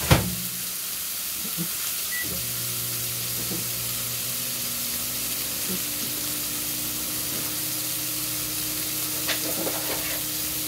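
Steak slices sizzling steadily in a hot frying pan. Right at the start there is a sharp click, then a short beep about two seconds in and a steady low hum from then on, fitting a microwave shut and started to heat chicken pieces.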